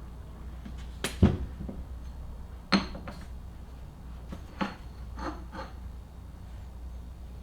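A handful of sharp metallic clanks and knocks with a brief ring, the loudest about a second in, from metal tools and a bench vise while a polyurethane insert is worked into a steel engine mount.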